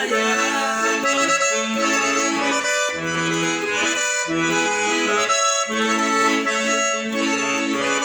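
Instrumental break in a Brazilian sertanejo (caipira) song: accordion playing the melody in held notes over a rhythmic bass accompaniment, with no singing.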